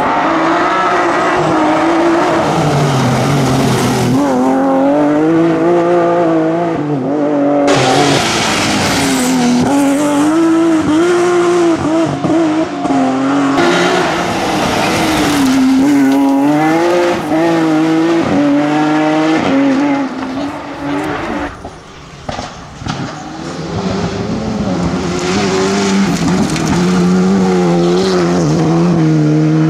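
Rally cars at full throttle, their engines revving hard and rising and falling in pitch through gear changes as the cars slide through corners.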